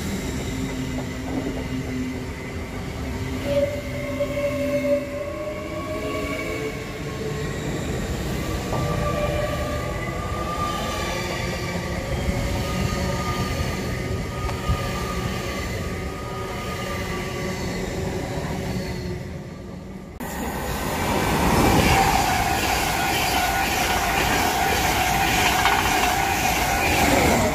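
LNER Hitachi Azuma train pulling out, its traction equipment whining in several tones that rise slowly as it gathers speed. About twenty seconds in, a louder passing express takes over: LNER coaches rushing close by with a dense rail rumble and a strong steady whine.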